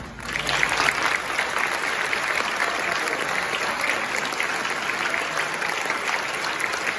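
Audience applauding, many people clapping at once. The applause swells in the first second and then holds steady.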